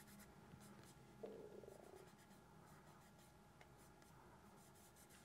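Faint rubbing and scratching of fingertips over the back case of a SwissMicros DM42 calculator, with a brief louder scrape about a second in.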